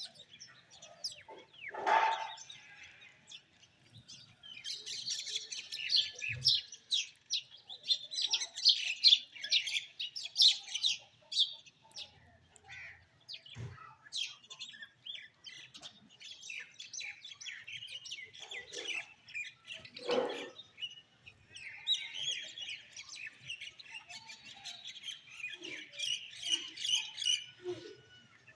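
Bulbuls chirping and chattering in quick runs of high notes. Two louder, lower calls stand out, about two seconds in and again about twenty seconds in.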